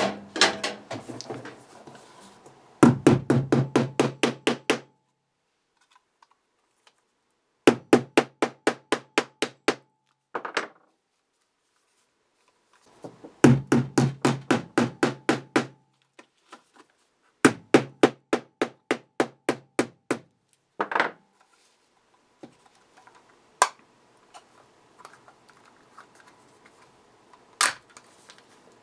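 Plastic enclosure of a glued-shut battery charger being knocked repeatedly to crack the glue seam: runs of sharp knocks, about six a second, each run lasting two to three seconds with pauses between, giving way to a few scattered single clicks near the end.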